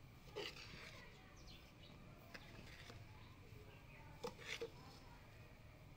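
Faint scraping of a metal spoon stirring dry, crumbly panjiri (roasted chana dal and semolina) in an aluminium pot, with a few light clicks of the spoon against the pot about four seconds in.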